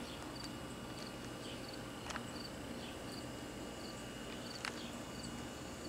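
A cricket chirping in short, evenly spaced chirps, a little faster than one a second. Two light clicks come through, one about two seconds in and one later.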